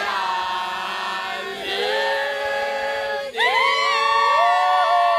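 A group of people singing out together in long, held notes, a new drawn-out phrase starting a little after three seconds in.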